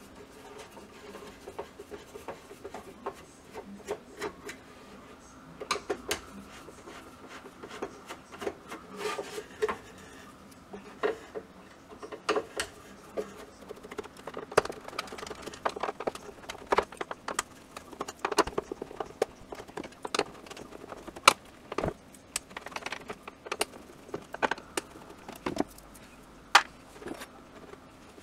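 Screwdriver work on a Robe Colorspot 250 AT moving-head light: irregular clicks, scrapes and small knocks as screws are turned and the metal and plastic housing is handled.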